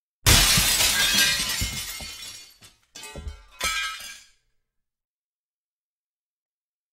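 Glass-shattering sound effect: a sudden loud crash with tinkling debris fading over about two seconds, followed by two shorter crashes, then it cuts off.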